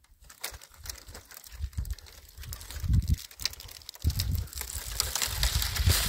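A dead tree's dry branches crackling and snapping as the tree is hauled, then scraping over stony, dusty ground, with a hiss that grows in the second half. Irregular low thumps come through throughout.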